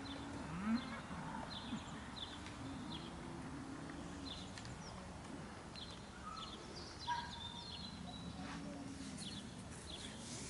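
Faint outdoor birdsong: short high chirps repeat every second or so, with low drawn-out calls underneath at times.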